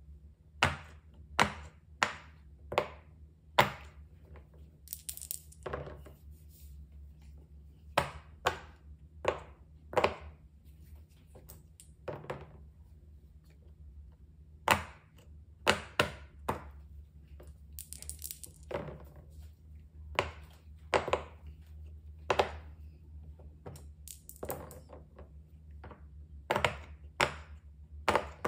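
Silicone pop-it bubbles pressed down one after another by a finger, each giving a short, sharp pop, in irregular runs of two to five with short pauses between.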